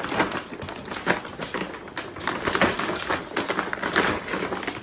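A plastic dog-food bag rustling and crinkling in quick, irregular crackles as a pug puppy rummages with its head inside it.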